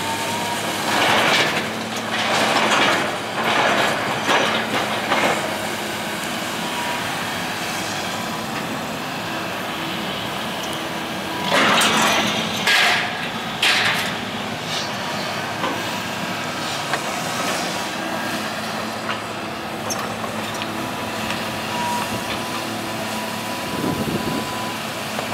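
Kobelco excavator's diesel engine running steadily while its demolition grapple tears at a brick building, with loud crashes and clatter of falling bricks and debris from about a second in to five seconds, and again around twelve to fourteen seconds.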